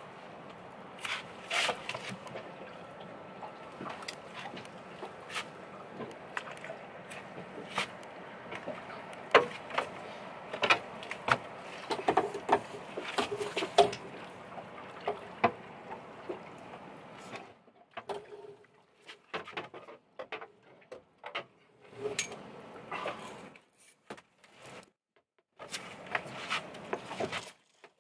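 Irregular clicks and knocks of fishing gear being handled aboard a small boat, over a steady hiss; in the last third the hiss cuts in and out, leaving scattered clicks.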